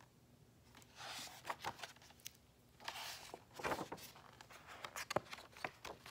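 Paper pages of a hardcover picture book being handled and turned by hand: rustling with a few sharp clicks, starting about a second in.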